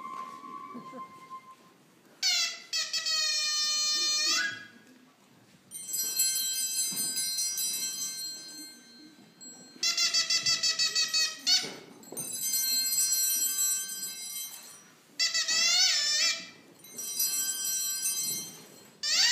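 A series of high-pitched, bleating squeals with a buzzy edge. Some are held steady, some waver rapidly, and some bend up or down, with short pauses between them.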